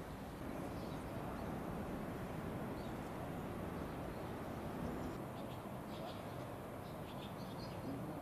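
Open-air town-square ambience: a steady low background hum, with faint, short high bird chirps in the second half.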